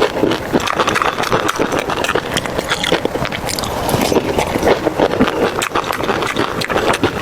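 Close-miked eating sounds: irregular wet chewing, smacking and clicking of a mouth working through food.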